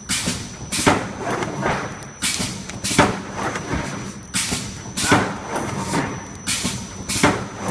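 Mail-bag making machine running, with sharp mechanical knocks about once a second over a steady motor hum and a faint high whine.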